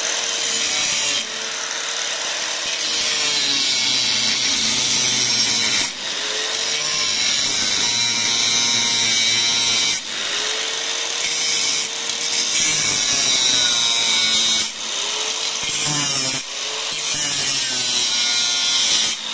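Power-driven drill bit sharpener grinding drill bits: a loud, continuous grinding hiss over a motor whose pitch sags and recovers again and again as it is loaded. It breaks off briefly several times.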